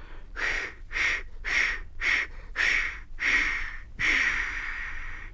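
A voice imitating a steam tank engine puffing slowly with breathy 'chuff' sounds, about seven puffs roughly half a second apart, then a long hiss of steam about four seconds in as the engine comes to rest.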